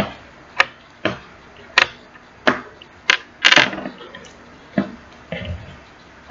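A plastic lid being fitted and pressed onto a slime container: a string of about nine short, sharp clicks and taps at uneven spacing.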